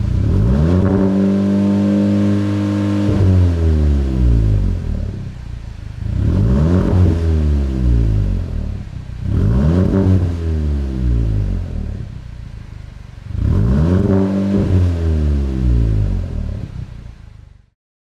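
Audi S3's turbocharged four-cylinder engine revved through its exhaust while stationary. It is held at high revs for about three seconds, then drops back, then is blipped three more times, each rev rising and falling back toward idle. It cuts off abruptly near the end.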